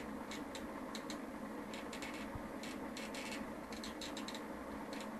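Faint, irregular small clicks and scratches, typical of a small adjustment potentiometer on a breadboard being turned by hand, over a steady low electrical hum.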